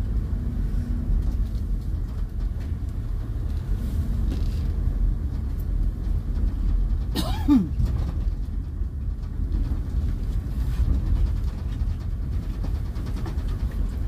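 Steady low rumble of a car driving slowly over a gravel dirt road, heard from inside the cabin. About halfway through comes one brief, louder sound that slides down in pitch.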